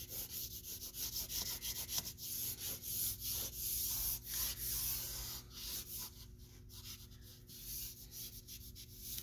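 Vine charcoal scratching over heavy drawing paper in many quick, short back-and-forth strokes as an area is shaded in. The strokes grow fainter and sparser about two-thirds of the way through.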